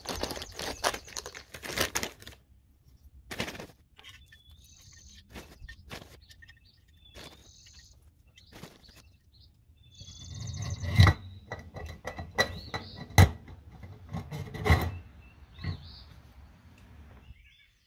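Hickory wood chips rattling into the Masterbuilt smoker's metal side-loading chip tray as it is handled, filled and slid back into its port, with scattered clicks and rustles and a few sharp knocks, loudest in the second half. Birds chirp in the background.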